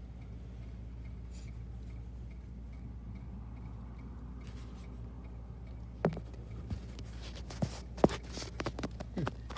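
A steady low hum with faint regular ticking. From about six seconds in come a run of sharp clicks and knocks, the loudest about eight seconds in: a phone being handled and bumped against the window frame.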